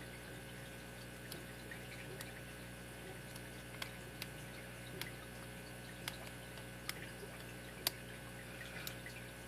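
Small, sharp, irregular clicks and taps of a lock pick working the pin stack of a 6-pin padlock under tension, over a steady faint hum.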